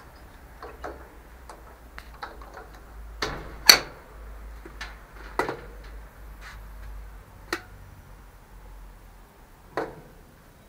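Irregular light clicks and knocks of equipment being handled around a steel drum, the loudest a sharp knock about three and a half seconds in.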